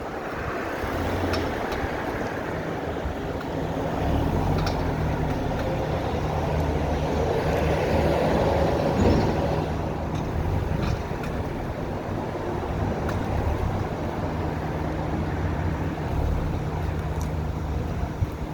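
A car moving slowly with its engine running steadily and a few sharp clicks scattered through, while steering. The owner is chasing a noise from the front wheels that comes when turning and is loudest turning in reverse.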